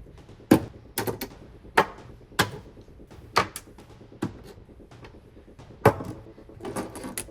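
Handling noise from an LCT ZP-19-01 airsoft rifle: about ten sharp, irregularly spaced clicks and clacks of its parts.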